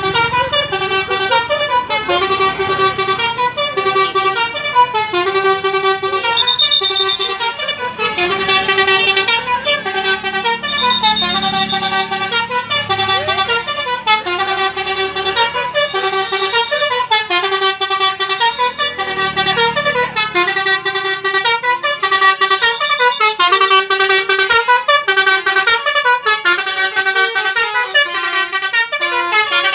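A coach bus's telolet basuri musical air horn plays a continuous melody of short held notes that step up and down. A low rumble sits underneath at times.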